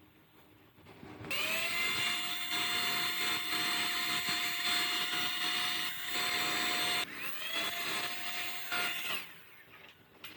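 Electric power-tool motor switched on twice: each time it spins up with a quickly rising whine, then runs at a steady pitch. The first run lasts about six seconds and stops abruptly; the second starts at once and lasts about two seconds.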